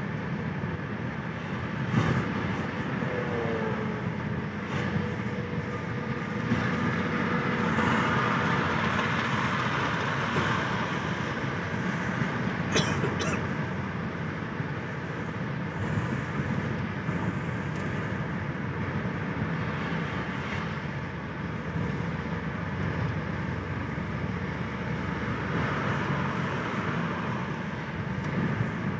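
Steady engine and road noise of a car driving on a highway, heard from inside the cabin, with trucks close ahead in traffic. A brief falling tone sounds about three seconds in, and a couple of sharp clicks come near the middle.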